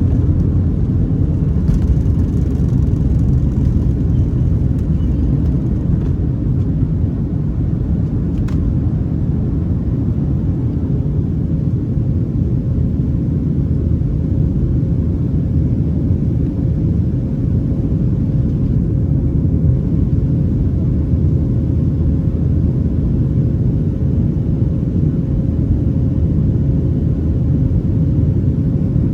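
Steady, loud cabin rumble of a Boeing 737-800 with its CFM56-7B jet engines running, heard from a seat over the wing, with a faint steady hum riding on top.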